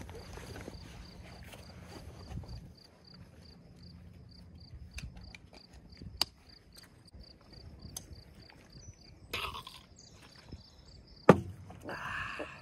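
Camping gear being handled and packed on a wooden picnic table: scattered light clicks and knocks, including backpack straps and buckles being fastened, with one sharp knock on the wood about 11 seconds in. A faint, high chirp repeating about four times a second runs underneath, and there is a brief vocal exclamation near the end.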